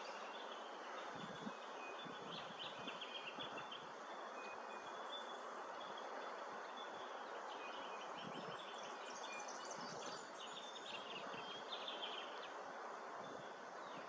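Bush ambience: a steady faint hiss with three bouts of high, fast chirping trills, each a second or two long.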